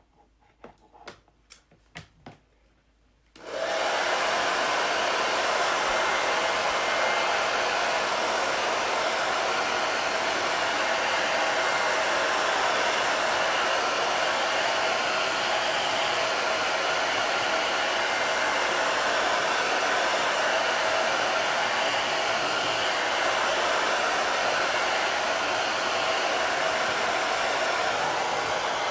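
A handheld hot-air dryer switched on about three and a half seconds in, after a few light clicks of handling, then blowing steadily and loudly, drying freshly applied chalk paste.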